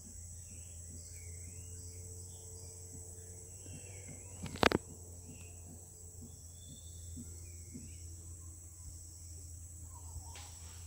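Forest ambience: a steady high-pitched drone of insects with faint bird chirps scattered through it. One sharp knock about halfway through is the loudest sound.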